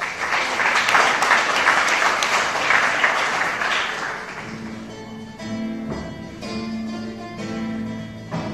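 An audience clapping for about four seconds after a recited poem. Then an instrument starts playing slow plucked notes, one every half second or so.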